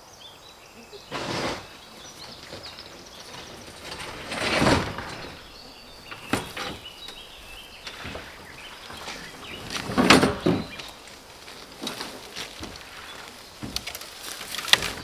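An IBC tote, a plastic tank in a steel-mesh cage, being tipped and rolled over on grass: several separate hollow knocks and scrapes from the cage and tank, a few seconds apart. Birds chirp faintly in the background.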